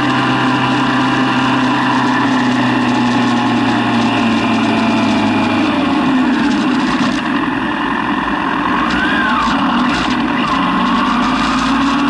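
Yamaha FZ6 600cc inline-four motorcycle engine running at a steady pitch, then easing off about halfway through as the throttle is closed and the bike slows, with a brief rise and fall in pitch a little later. A steady rush of wind noise sits over it.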